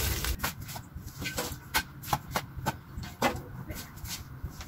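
Metal shovel digging into dirt: a quick, irregular run of sharp scrapes and knocks as the blade bites into the ground, some with a short metallic ring.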